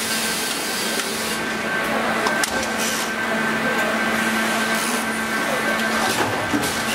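Assembly-line workshop noise: a steady machine hum and hiss, with scattered light clicks and knocks of parts being handled.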